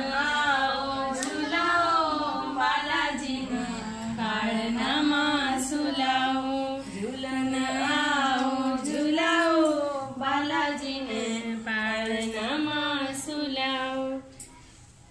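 Women singing a palna, a traditional cradle song, unaccompanied in the Rangari language, with long held notes. The singing stops about a second before the end.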